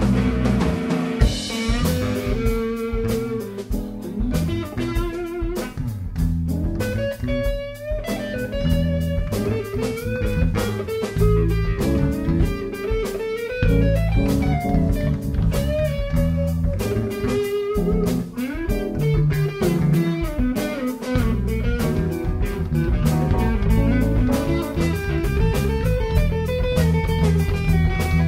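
Instrumental background music: a guitar melody over drums.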